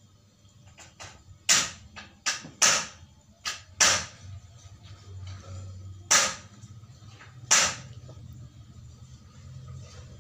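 Cats hissing and spitting in short, sharp bursts during a scuffle between an adult cat and a kitten. There are five quick hisses in the first four seconds, then two more, about six and seven and a half seconds in.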